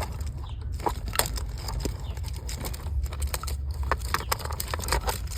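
Scattered, irregular clicks and light knocks of hands handling parts, over a low steady rumble. No engine is running.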